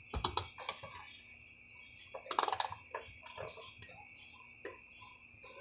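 Scattered light clicks and knocks from a spoon and bowl being handled while soap is mixed into slime, with a cluster of them a little over two seconds in. A steady high-pitched tone runs underneath.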